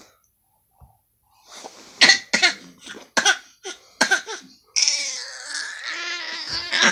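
An infant coughing in a run of short, quick coughs, then one drawn-out, wavering fussy cry lasting about two seconds.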